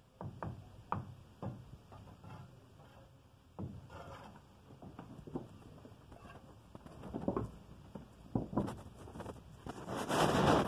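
Mason's trowel working mortar and clay bricks: a series of short scrapes and knocks, then a longer, louder scrape near the end.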